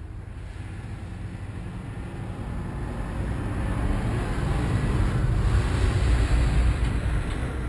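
Wind buffeting the microphone: a low rumbling rush that swells to a peak about six seconds in and then eases.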